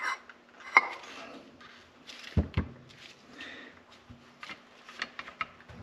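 Parts of a snowmobile primary drive clutch being handled and fitted back together: scattered clicks and knocks, with two louder knocks about two and a half seconds in and a run of light ticks near the end.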